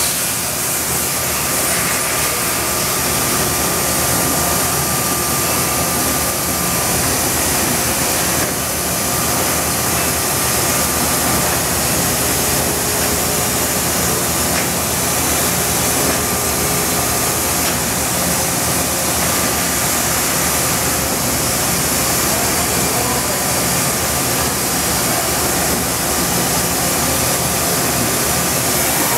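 OKK HM100S horizontal machining center milling an aluminium housing with coolant running: a steady hiss of cutting and coolant spray over the running spindle, with a faint high tone that comes and goes.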